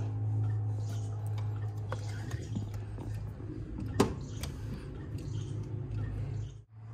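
Metal clicks and clinks of a 10 mm socket and ratchet working on the purge solenoid's mounting bolts, with one sharp clink about four seconds in, over a steady low hum.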